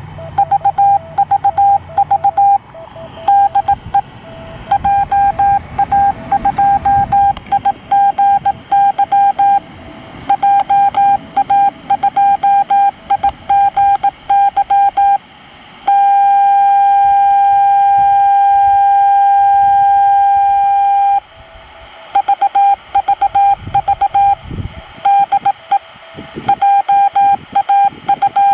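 The Ise Asama-yama 2.4 GHz amateur radio beacon, received in FM on an Icom IC-905 and heard through the radio's speaker. A tone of about 800 Hz is keyed on and off in Morse code, broken about halfway through by a steady unbroken tone of about five seconds.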